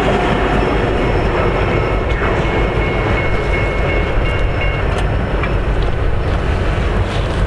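Freight train rolling past, its cars' wheels clattering steadily over the rails.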